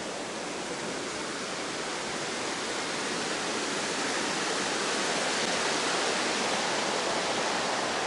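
Water rushing over a low weir in a village stream, a steady rush that grows louder toward the middle.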